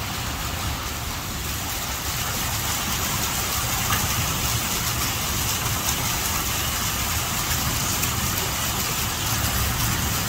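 Heavy rain pouring down on a flooded lane: a steady, even hiss of rain with a low rumble underneath.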